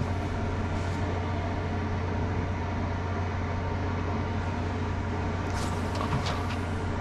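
Steady low mechanical drone with a strong low hum, as of an engine or generator running, with a few light clicks near the end.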